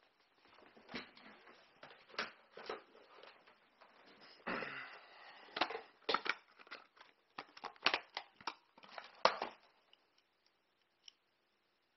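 Hands handling objects on a desk: a string of irregular clicks and knocks with rustling and scraping, which stops about ten seconds in.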